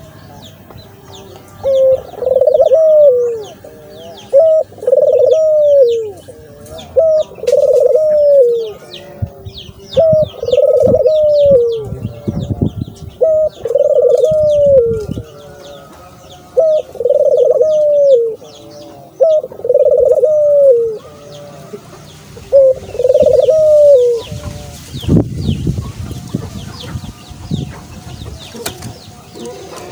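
Puter (Barbary) dove cooing over and over, about nine coos some two to three seconds apart, each about a second long and dropping in pitch at its end. Faint high chirps and ticks run behind.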